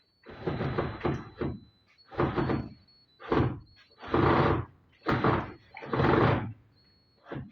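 Repeated noisy scraping strokes, about one a second and of uneven length.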